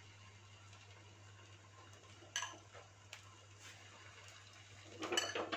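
Faint clinks of a steel spoon scooping and ladling egg-and-vegetable mixture: one sharp clink about two seconds in and a quick cluster of clinks near the end, over a low steady hum.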